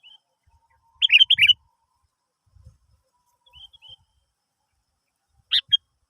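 Sooty-headed bulbul (kutilang) calling: a quick burst of about four bubbly notes about a second in and a short two-note call near the end, with faint chirps between.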